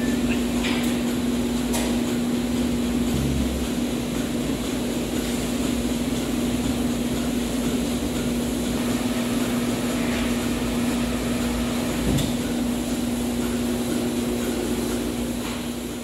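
Milking-parlour machinery running with a loud, steady hum that holds one low tone throughout, with a faint knock or two.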